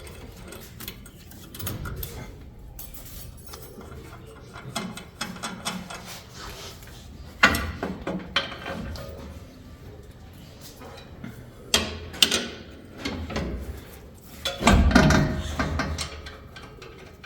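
Metal tools and suspension parts clanking and knocking while a pickup's steering knuckle is fitted back onto a new ball joint: scattered clicks, with sharp knocks about a third of the way in, past the middle, and a longer rattling clatter near the end.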